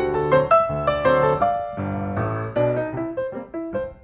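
Background music: piano playing a lively run of notes.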